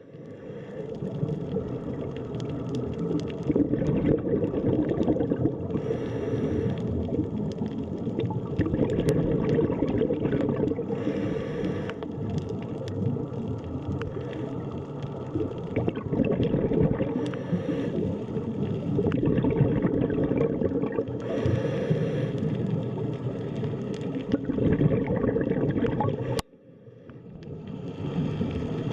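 Underwater ambience: a dense, muffled churning rumble with a hissy burst of bubbling every five seconds or so. Near the end it cuts out suddenly and fades back in.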